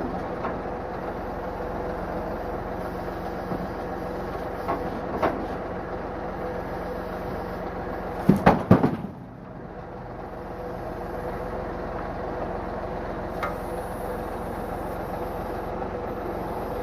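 Heavy machinery running steadily with a low hum and scattered knocks, broken about halfway through by a quick run of loud clanks.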